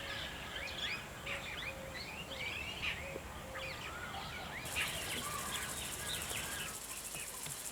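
Several songbirds chirping and calling at once, many quick rising and falling notes overlapping, with a short low note repeated several times in the first half. About two-thirds of the way in, an insect starts up a steady, high, pulsing trill.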